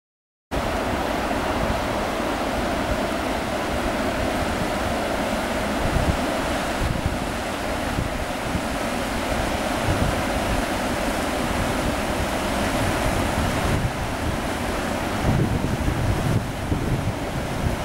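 Fast-flowing floodwater of the swollen river Loire rushing past, with wind buffeting the microphone in low rumbling gusts. It starts suddenly about half a second in.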